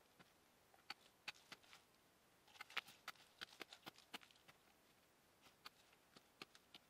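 Small hatchet chopping into the bark of a cashew tree trunk: a dozen or more short, sharp knocks at irregular intervals, coming fastest about two and a half to three seconds in.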